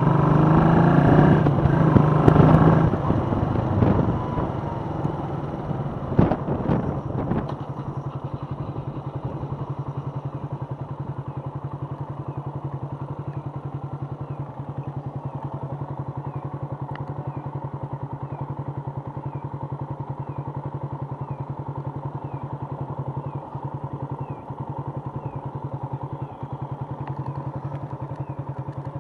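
Suzuki Volty's single-cylinder engine running loud under way, then dropping off, with a few sharp knocks about six seconds in. It then idles steadily with an even beat while the bike stands at the crossing.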